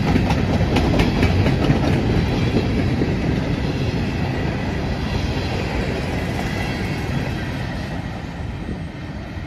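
Covered hopper cars of a freight grain train rolling past, with the steady rumble of the wheels on the rails and clicking as the wheels cross rail joints. The sound fades over the last few seconds as the end of the train passes and moves away.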